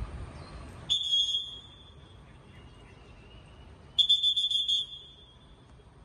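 Two shrill, trilling whistle blasts at a steady high pitch, about three seconds apart, the second one longer.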